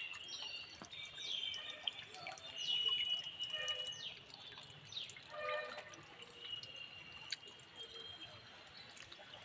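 Birds calling: many short, quick falling chirps and a few held high whistles, overlapping.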